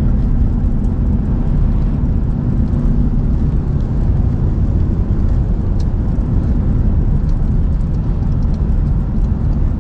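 Lawn mower engine running steadily under load while cutting grass.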